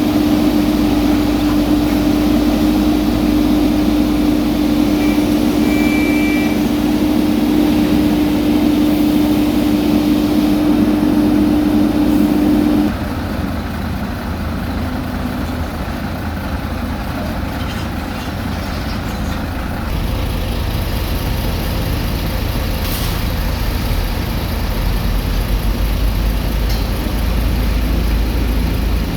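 Heavy diesel road-paving machinery running steadily, with a strong steady hum over the engine rumble that cuts off about halfway through.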